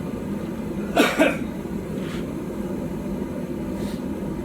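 A person coughs twice in quick succession, about a second in, over a steady low rumbling background noise.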